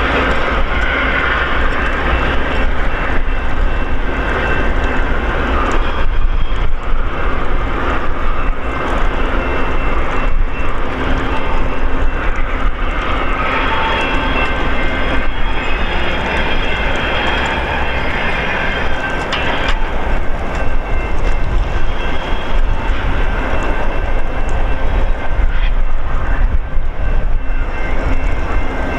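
VIA Rail passenger train at the station, a steady, loud rumble of train and rail noise throughout, with faint high steady tones over it.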